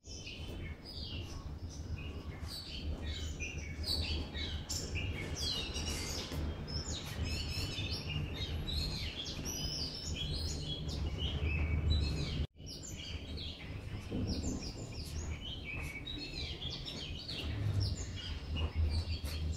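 Many small birds chirping busily in quick, overlapping calls, over a steady low rumble. The sound cuts out for an instant about two-thirds of the way through.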